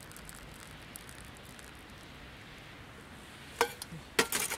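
Faint steady sizzle of mushrooms frying in a small skillet on a camp stove. Near the end come a couple of sharp clinks and then a louder quick cluster of them as cookware is handled.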